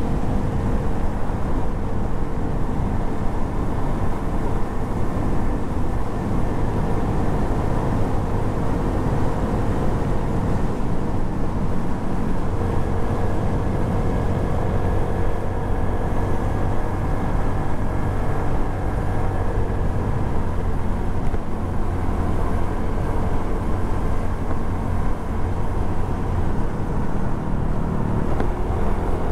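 Suzuki Address 110 scooter's single-cylinder engine running at a steady cruising pace, picked up by a camera mounted on the scooter, with road and wind noise under it.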